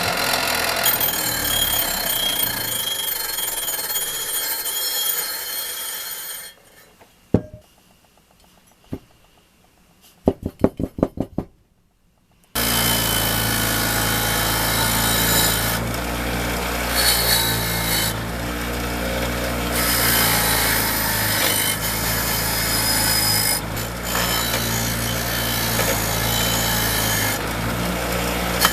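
A power tool running against a workpiece with a harsh rubbing, grinding noise, stopping about six seconds in. A few sharp clicks and a quick run of evenly spaced clicks follow. The tool starts again at about twelve seconds and runs steadily with a low motor hum.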